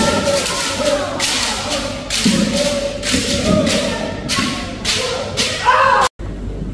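Kendo group swing drill: many voices shouting kiai together in rhythm, with a burst of noise about once a second and thuds of bare feet on a wooden floor. It breaks off abruptly near the end.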